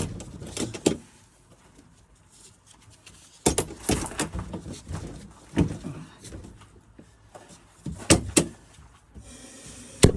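Scattered knocks and clunks, a few seconds apart, of parts and tools being handled at a farrier's gas forge after its relining.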